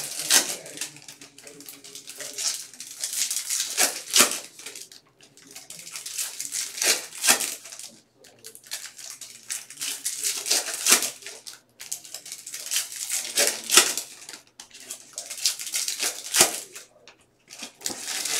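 Foil wrappers of Bowman baseball card packs crinkling and tearing open as they are ripped, with the cards inside being handled. It comes in crackly bursts every two to three seconds.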